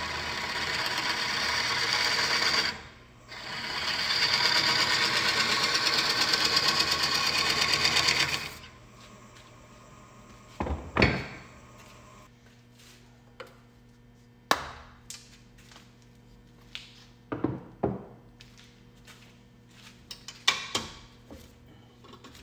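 A power tool working on wood: a steady, loud noise that dips briefly about three seconds in and stops about eight and a half seconds in. After that come a few separate sharp knocks and clicks.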